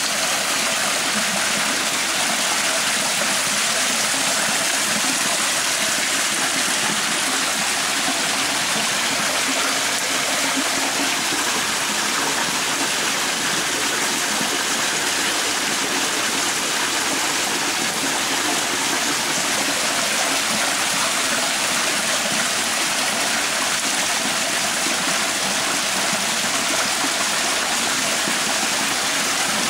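Water rushing and splashing steadily from flooding, a continuous even noise that does not change throughout.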